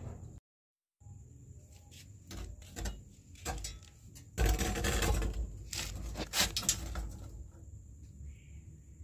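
Scattered knocks, scrapes and rustling of a wet kitten being pulled out from under a broken concrete drain slab, loudest for about a second near the middle; a brief dead silence near the start.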